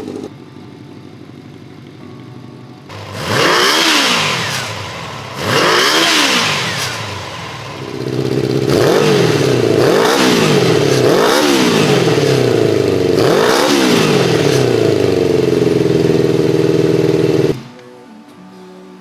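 Kawasaki GPZ400R's inline-four engine idling, then revved in quick blips, each rising and falling in pitch: two blips a few seconds in, then a run of about five over a loud steady running note, before it stops abruptly near the end.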